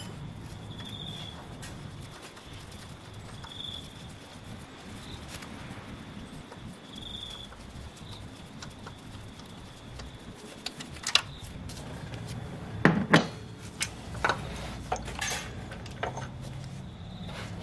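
Metal clinks and knocks as a timing chain and camshaft sprocket are worked loose by hand on a 1.8 L QG18DE cylinder head. It is quiet for about the first ten seconds, then there are several sharp clicks and knocks in the second half.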